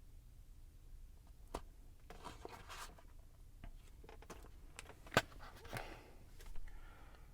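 Faint rustling and a few sharp clicks from someone handling a Big Mac and its food packaging, the sharpest click about five seconds in.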